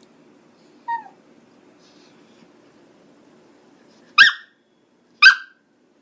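Chihuahua vocalising: a short, falling yip about a second in, then two sharp barks about a second apart near the end.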